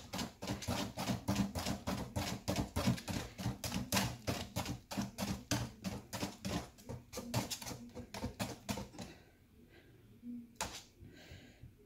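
Wire whisk beating thick handesh batter in an aluminium saucepan, the wires clicking against the pan in a rapid, regular clatter of several strokes a second. The beating stops about nine seconds in, and one more knock follows near the end.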